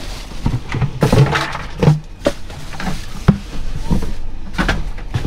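Cardboard boxes and plastic containers being shifted and rummaged through inside a metal dumpster: rustling with a run of knocks and clatters, the sharpest about three seconds in.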